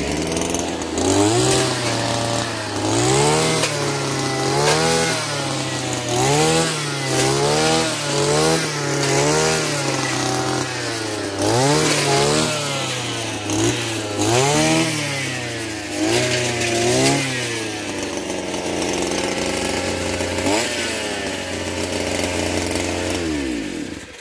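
Petrol brush cutter's two-stroke engine revving up and down about once a second as the blade cuts into dense vines and brush. It then runs at a steadier speed and winds down near the end.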